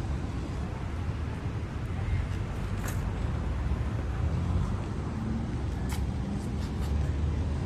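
Steady low rumble of a moving vehicle, with two brief sharp clicks about three and six seconds in.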